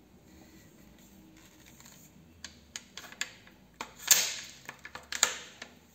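Bolt action of a Gras M80 rifle converted to a 24-gauge shotgun being worked by hand: a run of light metal clicks, then two loud metal clacks with a short rasping slide, about four and five seconds in.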